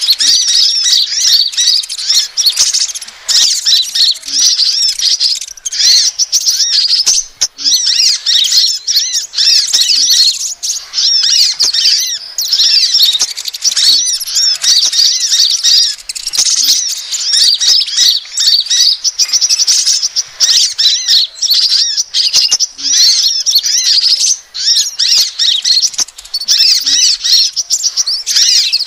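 Bird-lure recording of crimson sunbird ('kolibri ninja') calls: a fast, nearly unbroken stream of high, thin chirps and short twittering whistles, loud, with only a few brief breaks.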